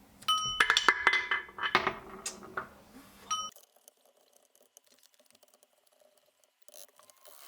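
Metal parts and tools clinking against each other during gearbox work, with a struck metal piece ringing briefly more than once, for about the first three and a half seconds. After that only faint small ticks.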